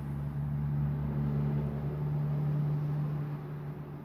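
Steady low mechanical hum, like a running engine or motor, with a strong single low tone; it swells slightly through the middle and eases a little near the end.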